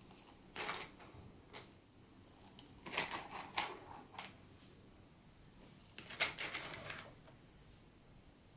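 Segmented plastic marble-run rails clicking and clattering against wooden blocks as they are set down and pressed into place by hand. The sound comes in short bursts of rattling clicks: about a second in, around three seconds in, and again around six to seven seconds in.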